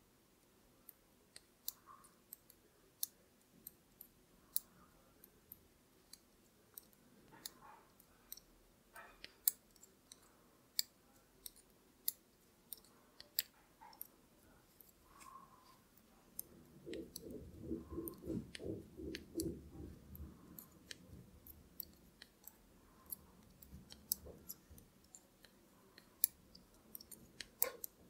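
Knitting needles clicking faintly and irregularly as stitches are knit along a plain row, with a few seconds of low, muffled rustling a little past the middle.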